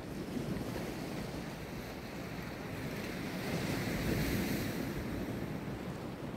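Sea waves washing and breaking against the rocks below a seawall, a steady wash with one wave swelling louder about two-thirds of the way in.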